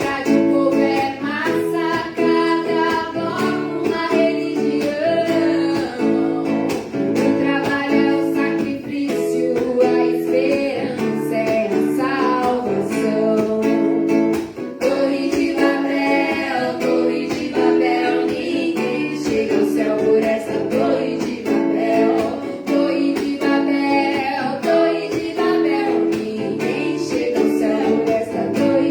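Acoustic guitar strummed and picked, with a voice singing a song over it.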